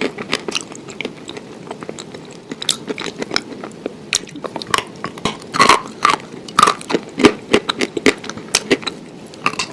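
A person chewing and biting food close to the microphone, with irregular crunching clicks, louder ones coming in the second half.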